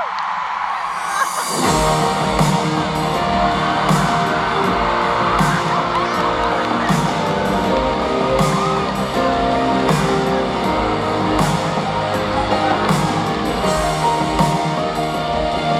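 Live pop-rock band playing a song, recorded from the audience in a concert hall. After a quieter opening, the full band of drums, cymbals, bass and guitar comes in about a second and a half in and plays on at a steady beat.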